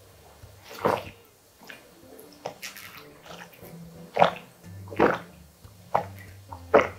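Gulping water from a large plastic bottle, a swallow about once a second, over background music.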